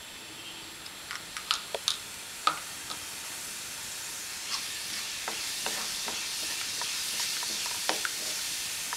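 Cumin seeds sizzling and crackling in hot oil. The hiss builds steadily, sharp pops are scattered through it, and a spatula stirs the seeds near the end.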